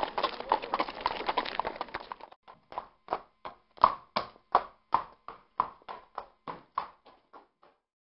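Horse hooves clip-clopping: a quick clatter at first, then separate hoofbeats about three a second that fade and stop near the end.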